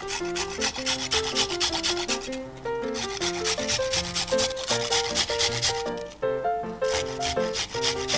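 Quick rasping strokes of a fine handheld rasp grater scraping over raw pork ribs, pausing briefly twice, over background music with a melody.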